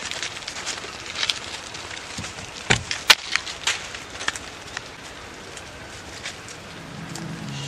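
Sheep grazing in dry leaves: irregular crackling and rustling with scattered sharp clicks, two louder snaps about three seconds in. Music starts faintly near the end.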